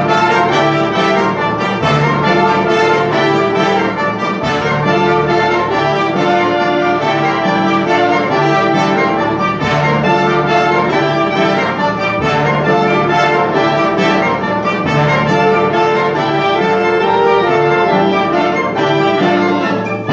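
Ensemble music played live, with brass instruments such as trumpets and trombones prominent over sustained chords.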